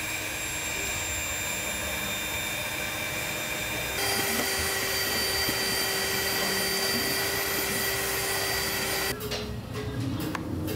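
Steady mechanical whirring with a hiss and a few fixed tones. It steps up abruptly about four seconds in, and near the end gives way to a rougher noise with a few knocks.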